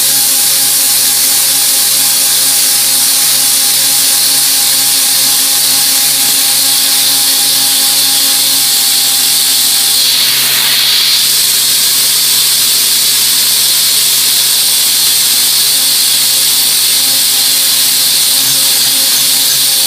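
Milling machine cutting 304L stainless steel under minimum-quantity lubrication (air-oil mist, no flood coolant): steady machine tones under a loud, steady hiss of the cut and the air spray. About ten seconds in, the tone changes and the hiss briefly gets brighter.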